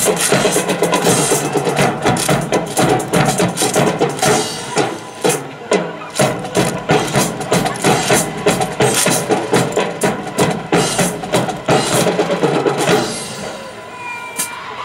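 Marching drum line playing a fast, rhythmic cadence on snare and bass drums, which stops near the end.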